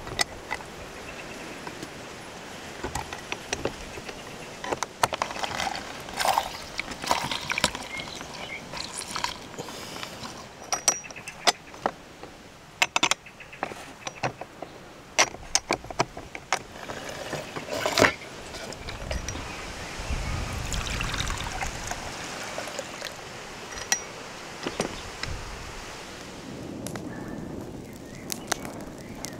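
Metal hand press worked on a wooden cutting board: many sharp clicks and metallic clinks as garlic and lemon halves are pressed. Near the end a wood fire crackles.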